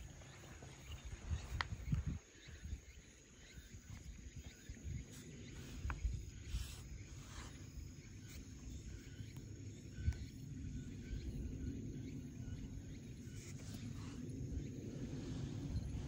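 Faint low outdoor background rumble, growing slightly stronger near the end, with a few scattered light clicks and taps.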